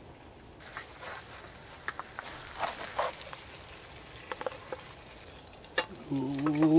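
Fried eggs sizzling in a frying pan, with scrapes and clicks of a wooden spatula working under the eggs and sliding them onto an enamel plate. A man's voice starts near the end.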